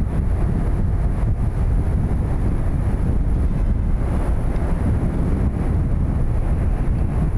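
Wind buffeting the microphone: a steady low rumble with no clear engine tone.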